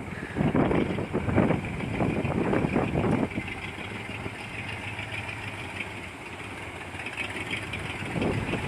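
1958 Chevrolet Apache pickup's engine running, louder and uneven for the first three seconds, then quieter and steady.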